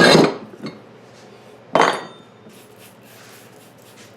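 Metal clanks from handling a lawn tractor wheel rim on a tire-changing jig: a loud clatter at the start and another sharp clank about two seconds in.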